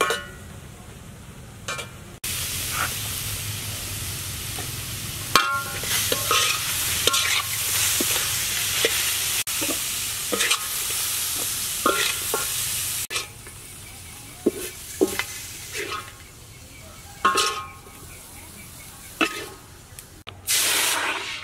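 Chopped pineapple sizzling in a wide metal wok while a spatula stirs and scrapes it against the pan. About 13 seconds in, the sizzle drops away and separate spatula scrapes follow, with a loud scrape near the end as the pieces are pushed out.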